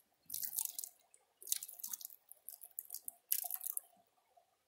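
Water sloshing and swishing in a plastic gold pan as it is swirled and shaken, in separate swishes about once a second.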